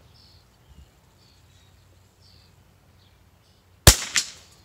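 A .22 LR Savage Mark II bolt-action rifle fires a single shot near the end, a sharp crack followed about a third of a second later by a second, fainter crack. Faint bird chirps come before the shot.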